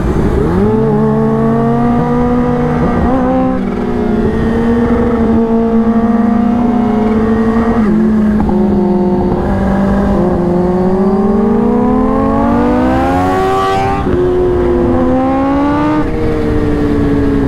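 Supercharged 998 cc four-cylinder engine of a Kawasaki Ninja H2 accelerating hard through the gears. Its pitch climbs in each gear and drops at three upshifts, about 3.5, 8 and 14 seconds in, with wind rush building at speed.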